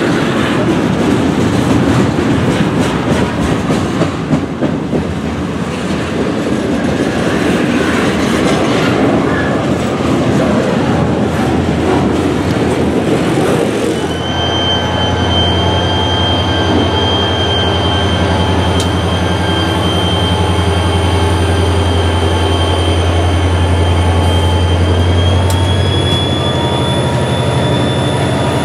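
A double-stack intermodal freight train rolling past, a dense steady rumble of wheels and cars. About halfway through it cuts to a diesel locomotive running steadily: a low engine hum with a high, steady whine that rises slightly near the end.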